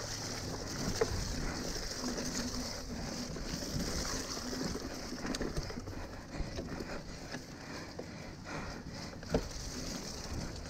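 Mountain bike riding fast over a wet, muddy dirt trail: tyres rolling through mud and leaves, and the bike rattling, with a steady hiss and a couple of sharp knocks, about a second in and near the end.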